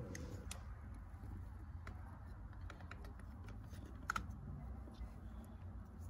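Scattered light clicks and taps of small plastic and metal parts being handled: the ignition lock cylinder with its key and key ring. A sharper double click comes about four seconds in.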